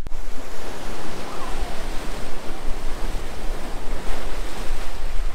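Ocean surf breaking and washing over a rocky shore as a steady rush of noise, with wind rumbling on the microphone.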